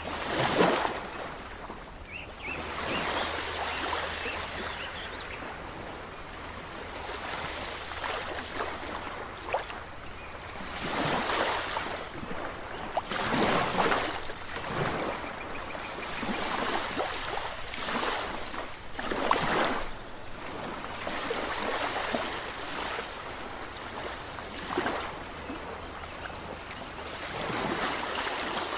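Ocean waves breaking and washing over the shore, a steady rush of surf that swells into louder breakers every few seconds.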